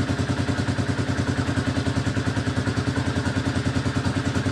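Z 250 motorcycle engine idling steadily through its custom sport exhaust, with a fast, even pulsing.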